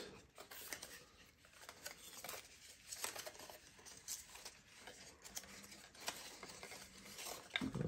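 Faint rustling and scattered small clicks of hands handling AR glasses, a card insert and coiled cables as they come out of a hard carrying case.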